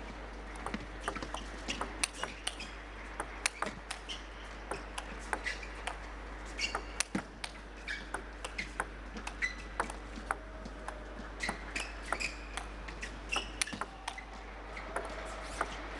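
Long table tennis rally: the celluloid ball clicking sharply off the rubber bats and the table again and again, with short high squeaks of shoes on the court floor between shots.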